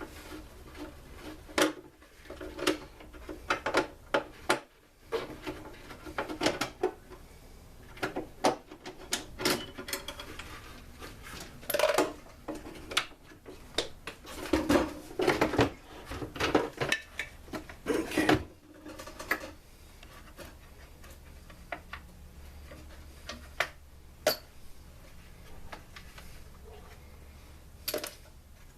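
Irregular clicks, clinks and knocks of hand tools and metal and plastic parts being handled while a backpack blower is taken apart. The handling is busiest in the middle and thins to the odd click near the end.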